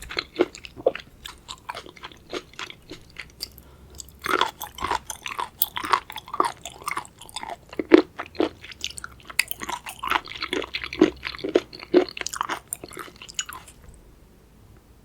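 Close-miked chewing of raw seafood: crisp crunching bites and wet, sticky mouth sounds in a dense run that dies away about a second before the end.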